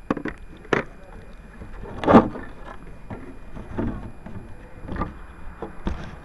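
Handling noise from a crashed RC airplane's onboard camera as it is picked up and carried: scattered clicks, knocks and rubbing, with the loudest bump about two seconds in.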